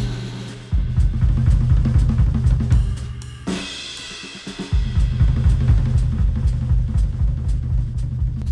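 Instrumental music with a drum kit and a heavy bass line, played through headphones and recorded by measurement microphones. The bass and kick drop out about three and a half seconds in and come back about a second later.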